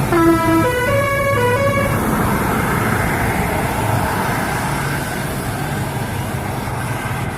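Indonesian telolet bus horn playing a quick tune of several stepping notes for about two seconds, followed by steady traffic noise as the bus goes by.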